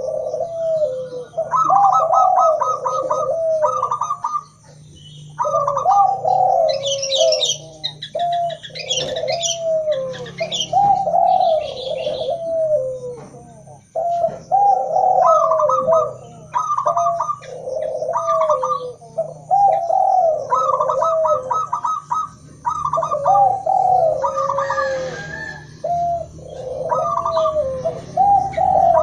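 Doves cooing: a mix of zebra dove, spotted dove and Barbary dove calls, repeated cooing phrases following one another almost without pause. Bursts of high small-bird chirping come in about a quarter of the way through and again briefly near the end.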